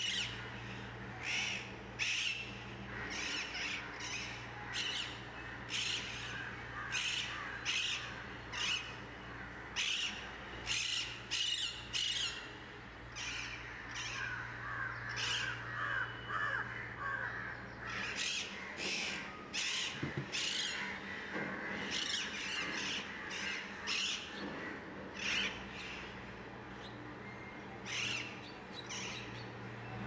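Alexandrine parakeets giving short, harsh squawks over and over, about one a second, over a low steady hum.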